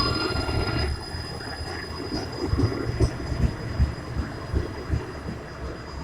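Finch West LRT light rail train pulling away. Its rising motor whine tops out in the first second, then the wheels rumble on the track with irregular low thumps.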